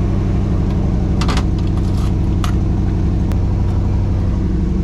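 1954 Chevy 3100 pickup's inline-six engine idling steadily with an even low pulse, freshly restarted on new battery cables. A few light clicks come through over it in the first half.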